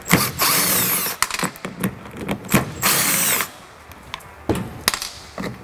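Cordless impact driver backing screws out of a plastic socket housing held on a wood block: two short runs, about half a second in and about three seconds in, with small clicks and knocks of handling between and after.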